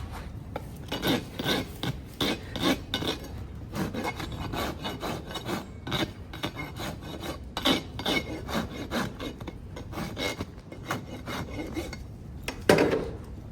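Farrier's rasp drawn in repeated, irregular strokes across the hoof wall, dressing the clenched-over nail ends of a freshly nailed shoe. A louder thud comes near the end.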